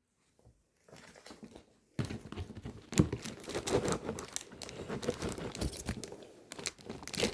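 Craft-kit packaging crinkling and rustling as it is handled and opened. It starts faintly about a second in and turns into a loud, continuous crackle about two seconds in.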